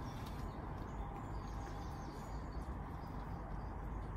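Quiet outdoor ambience: a steady low rumble of wind with faint bird chirps.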